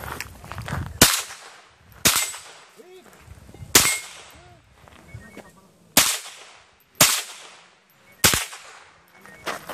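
Six single rifle shots, irregularly spaced about one to two seconds apart, each sharp crack followed by a short echoing tail.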